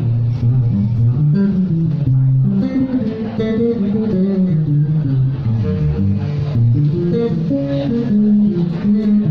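Acoustic band playing live: a bass guitar carries a line of low notes that steps from note to note, with plucked guitar notes above it.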